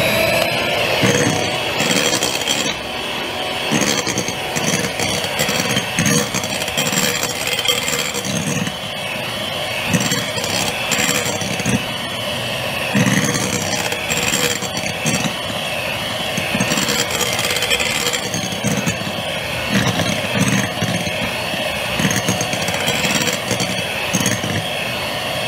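Electric hand mixer running steadily, its wire beaters whipping egg whites into meringue in a glass bowl, with uneven low knocks of the beaters. The meringue is still too soft, not yet at soft peaks.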